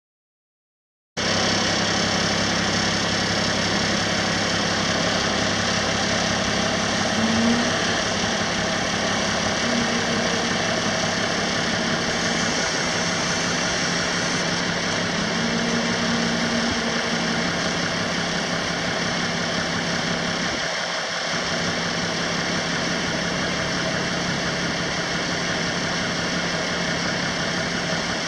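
Six-cylinder diesel engine of a 1982 International S1954 bucket truck idling steadily. It is already running when the sound cuts in about a second in.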